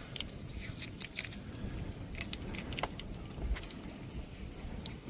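Hands working spliced wiring and electrical tape: scattered small clicks and crackles, irregular, over a low steady background noise.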